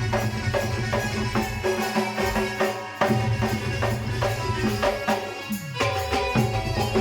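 Sambalpuri folk music played by an orchestra: a steady, rhythmic drum beat under sustained melodic instruments. The music dips and restarts about three seconds in, and a falling pitch glide comes a little past halfway.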